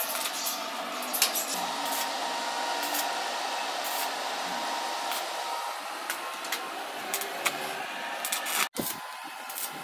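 Electric arc welding on steel pipe: a steady crackling hiss with sharp pops. It cuts off abruptly near the end.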